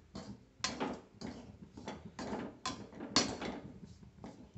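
Perforated metal skimmer scraping through dry rice bran against a metal kadai as the bran is stir-roasted, in quick, uneven strokes about twice a second.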